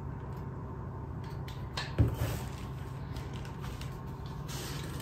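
Small kitchen handling sounds over a steady low hum: a few light clicks and one sharp knock about two seconds in, as a cup or spoon is handled at the counter.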